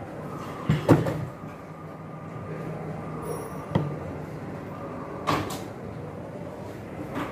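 A handful of sharp clicks and knocks over a steady background hum: metal parts and tools being handled during hands-on wiring work. The loudest pair comes about a second in, with single knocks near the middle and near the end.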